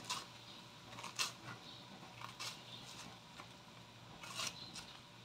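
A knife slicing pieces off a raw banana blossom: a handful of faint, crisp snaps, irregularly spaced about a second apart.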